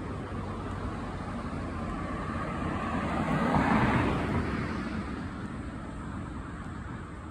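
A road vehicle driving past: its tyre and road noise swells to a peak about halfway through, then fades away.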